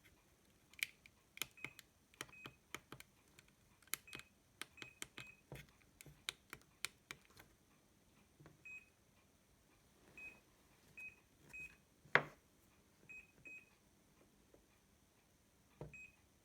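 Touch-screen car stereo head unit giving short high beeps as it is pressed, mixed with sharp taps and clicks on the screen and buttons, a quick run of them in the first half and one louder click near the end.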